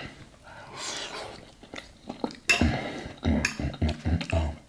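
Knife and fork clinking and scraping against a plate while cutting chopped steak, busier in the second half with several dull knocks.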